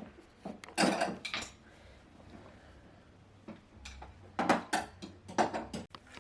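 Knocks and clattering of hard objects being handled, in a cluster about a second in and another from about four and a half to five and a half seconds in.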